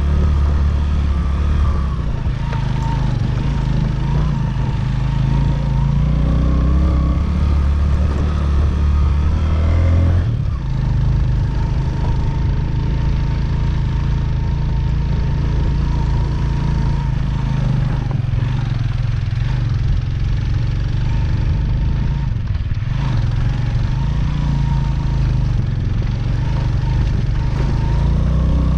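Motorcycle engine running steadily while riding, its note shifting about ten seconds in.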